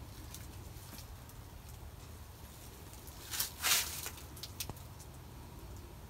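Quiet outdoor background with two brief rustles a little past the middle, followed by a few faint clicks.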